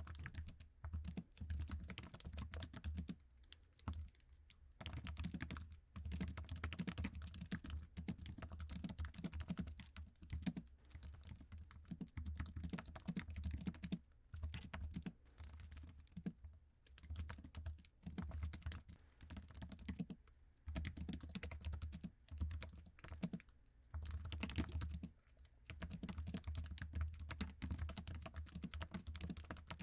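Fast, continuous typing on a stock iMac keyboard: quick runs of key clicks broken by several short pauses.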